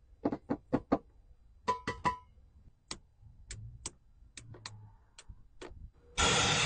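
A run of sharp, irregularly spaced clicks and ticks, several close together in the first two seconds and then single ones. A loud burst of hissing noise starts suddenly near the end.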